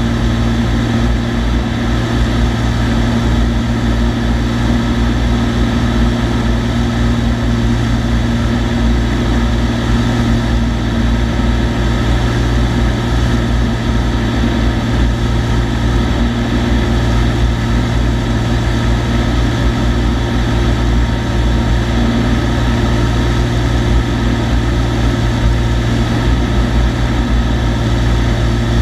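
Cessna TU-206D's turbocharged six-cylinder Continental engine and propeller running at a steady drone in flight.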